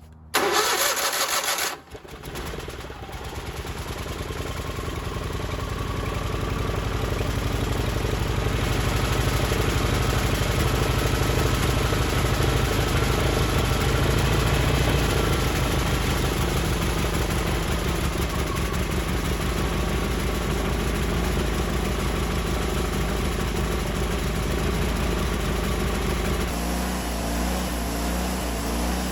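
Wood-Mizer LT40 portable band sawmill running as its band blade cuts an Osage orange log, heard for the first time. A short loud burst comes in the first two seconds. The engine sound then builds over several seconds and holds steady, and it shifts to a lower, pulsing note near the end.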